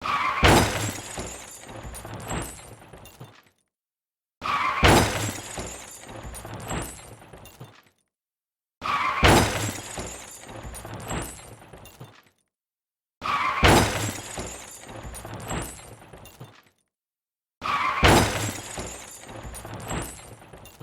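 Car crash sound effect: a sudden loud impact followed by breaking glass and clattering debris for about three seconds. The same crash repeats five times, each followed by about a second of silence.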